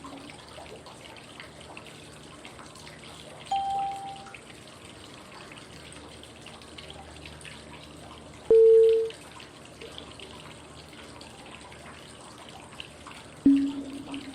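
Steady running-water ambience with a short cue tone every five seconds pacing the 5-second inhale, hold and exhale of 555 breathing. A higher tone sounds about three and a half seconds in, a loud middle tone about eight and a half seconds in, and a lower ringing tone near the end.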